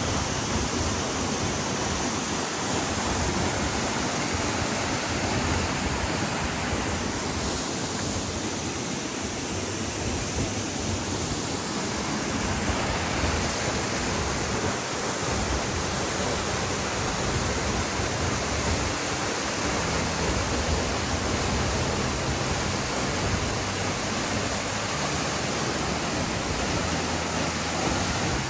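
Large waterfall pouring down rocky ledges: a steady, loud rush of falling water.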